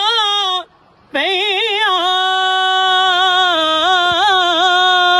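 A solo male voice singing a devotional Punjabi kalam unaccompanied, in long held notes with wavering, ornamented turns. It breaks off for a short breath just under a second in, then goes on.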